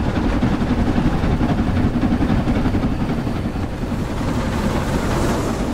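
Model trains running past close by: a steady, fluttering rumble of wheels and motors on the track.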